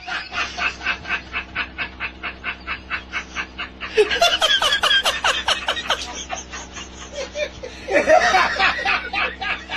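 Rapid, rhythmic snickering laughter, about six pulses a second over a steady low hum, growing louder about four seconds in and again near the end.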